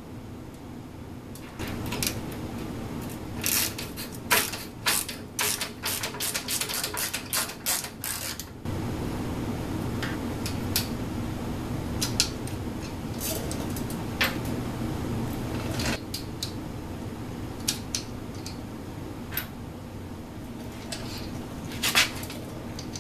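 Small clicks and light knocks of hand assembly on an aluminium-extrusion CNC router frame: a quick irregular run of clicks for the first several seconds, then a few single clicks. A low steady hum comes in about nine seconds in.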